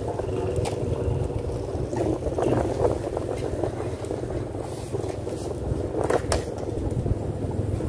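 Wind buffeting the microphone over open water, a low uneven rumble, with a few sharp clicks, the loudest about six seconds in.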